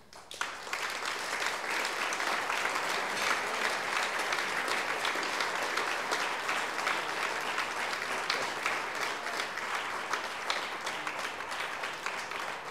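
A roomful of guests applauding, many hands clapping at once. It starts within the first second, holds steady and eases slightly near the end.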